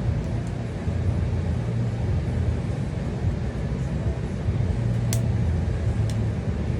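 Steady low background hum, with two light clicks about five and six seconds in.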